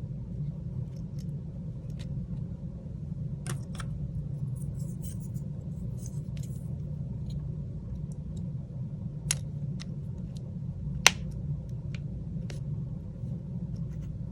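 Small, sharp, irregular clicks and taps of tools and parts being handled on an opened smartphone, the loudest about eleven seconds in, over a steady low hum.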